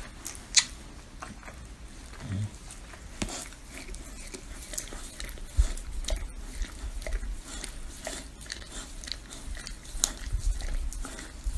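A dog licking a person's face close up: many quick, irregular wet tongue smacks and slurps, with occasional low thumps.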